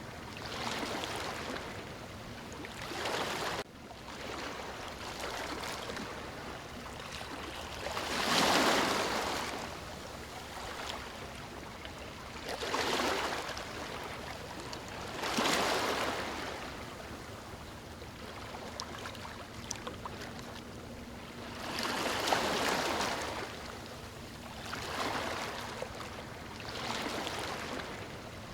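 Ocean waves breaking on a beach: surf washing in repeated swells every few seconds, the biggest breakers about a third of the way in, halfway, and three-quarters of the way through, over a steady rush of water.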